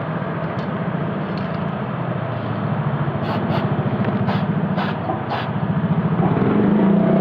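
Sherco TY125 motorcycle engine running steadily, with a few light sharp clicks in the middle; the engine note dips briefly and then picks up near the end.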